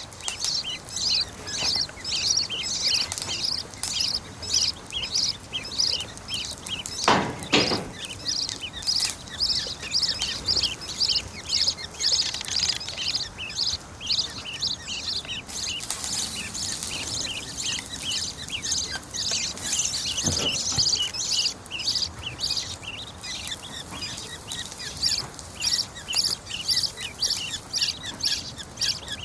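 Parrot chicks give short, high chirps in quick, steady succession: the repeated begging calls of chicks at hand-feeding time. A brief, louder noise comes about seven seconds in.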